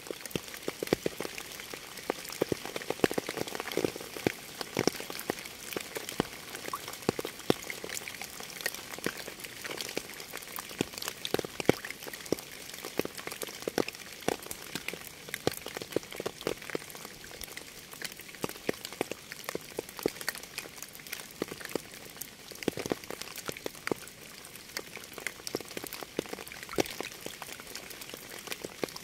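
Rain falling steadily, with many separate drops striking a surface close by over an even hiss.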